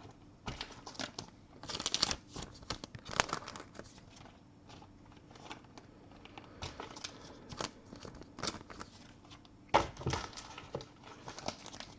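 Plastic card sleeves and their packaging being handled, crinkling and rustling in scattered bursts with small clicks and taps; the loudest rustles come about two, three and ten seconds in.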